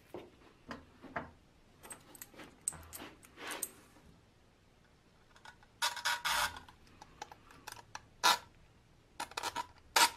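Steel axle rod and plastic wheel clinking and scraping against a pressed-steel toy truck chassis as the axle is pushed through its holes: scattered light clicks, a scraping rasp about six seconds in, and sharp clicks near the end.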